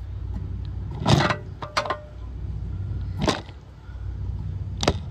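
Metal tools being handled at a car's brake and hub: four or five sharp knocks and clinks, one with a short metallic ring, over a steady low hum.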